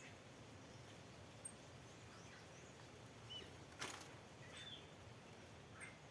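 Faint, short bird chirps scattered over a steady background hiss, with one brief sharp click or rustle about four seconds in.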